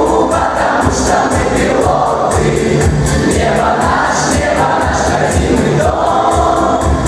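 School choir singing in unison over a backing track with a steady beat.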